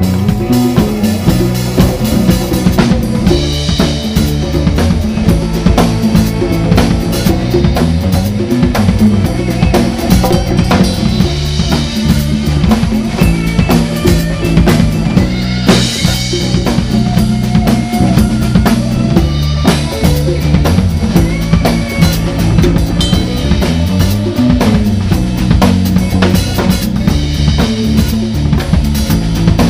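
Live band music led by a drum kit, with hand drums and a moving bass line under frequent drum and cymbal hits.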